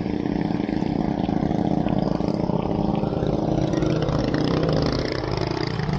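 An engine running steadily under wind rushing on the microphone of a moving bicycle.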